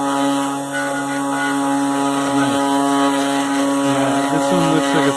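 3-axis CNC router running a toolpath in scrap wood: a steady machine whine with a lower drone that jumps and glides in pitch as the cutting moves change, about halfway through and again near the end.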